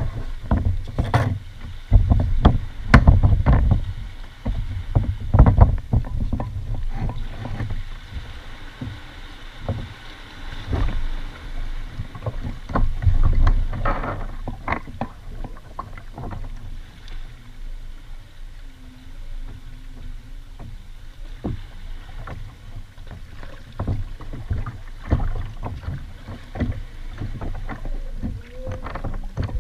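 Irregular knocks and handling noises aboard a sit-on-top fishing kayak on the water, with low rumbles of wind on the microphone.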